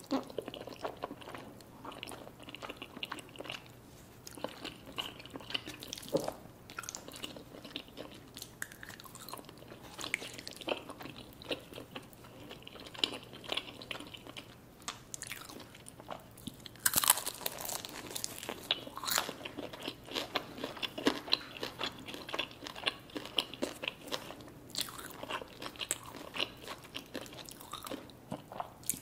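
Close-miked eating of chicken wings and creamy Alfredo pasta: steady chewing and biting with frequent crunches, the sharpest and loudest crunches coming a little past halfway.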